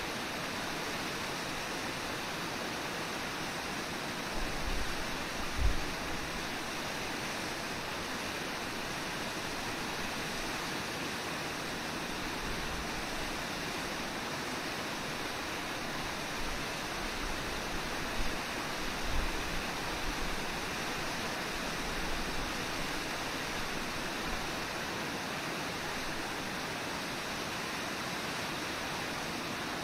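Brooks Falls, a low, wide river waterfall, rushing steadily, with a few brief low thumps about five seconds in and again around eighteen to nineteen seconds.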